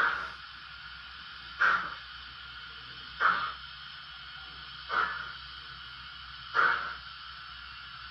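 Zimo sound decoder in a Bachmann City of Truro model steam locomotive playing slow exhaust chuffs, five evenly spaced about every second and a half, over a steady hiss, as the loco crawls at very low speed.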